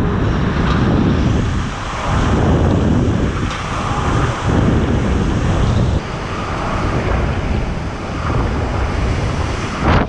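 Tropical cyclone winds gusting hard and buffeting the microphone, loud surges with short lulls every couple of seconds.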